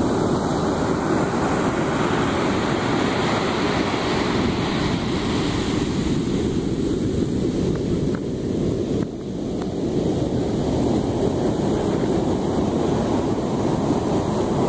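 Ocean surf breaking and washing onto a sandy beach, a steady wash of noise that eases briefly about nine seconds in and swells again, with wind buffeting the microphone.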